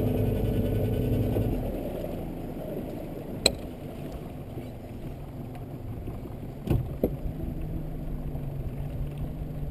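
Boat's outboard motor running steadily, then throttled back about a second and a half in to a much quieter low hum. A sharp click comes a couple of seconds later and two knocks near the end.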